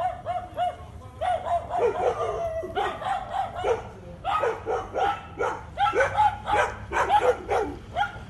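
A dog barking over and over in quick runs of short yaps, two to three a second, with brief breaks about a second in and again near the middle.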